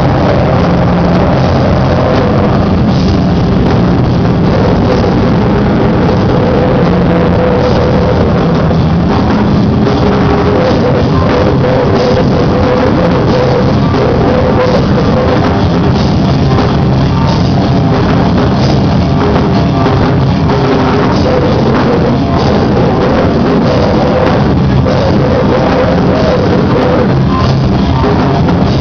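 A live rock band playing at full volume: electric guitar and drum kit, loud and steady throughout.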